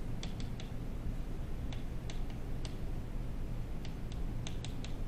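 Scattered light clicks, a few at a time in small clusters, over a steady low hum.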